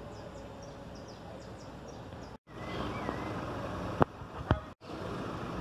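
Outdoor background ambience: a steady noise bed with faint high bird chirps in the first second or so. It drops out abruptly twice, and two sharp clicks come about four seconds in and half a second later.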